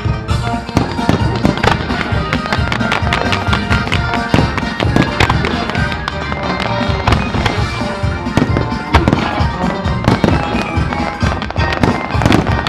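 Fireworks display firing: dense sharp bangs and pops of shells and comets going off, over the show's music soundtrack.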